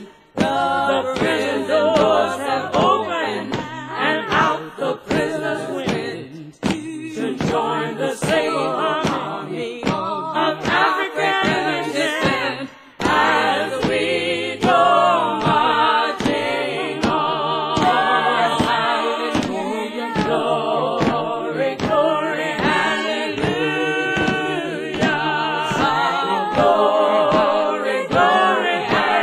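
Unaccompanied group of voices singing a slow gospel-style song, with vibrato on the held notes and a couple of short breaks between phrases.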